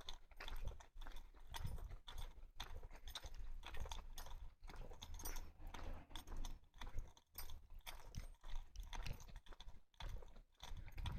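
Footsteps of a person walking, a steady run of short crunching steps with low thumps at an uneven pace.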